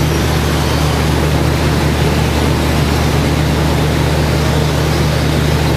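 Radio-controlled stock-class race trucks running laps on an indoor dirt track, a steady mix of motor whine and tyre noise over a continuous low hum.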